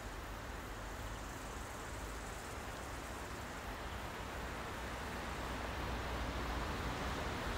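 Distant freight train hauled by a Class 185 electric locomotive approaching: a steady low rumble and rolling noise that grows slowly louder.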